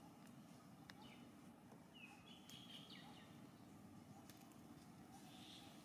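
Near silence: faint outdoor ambience with a steady low hum, a few short high bird chirps about one to three seconds in, and a few faint clicks.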